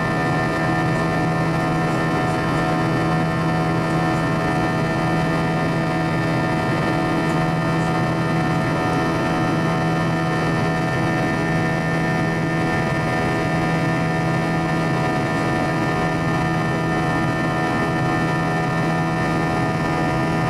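Airbus A321's IAE V2500 turbofan engines heard from inside the cabin during the climb after takeoff: a steady drone carrying a buzzing chord of many steady tones, the fan 'engine buzz'.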